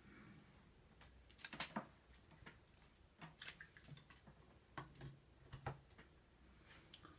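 Faint, scattered clicks and light taps from small objects being handled, in clusters about a second in, around the middle and again near the end.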